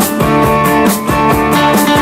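Instrumental passage of a late-1960s pop-rock band song, with guitar, bass and drums playing a steady beat and no singing.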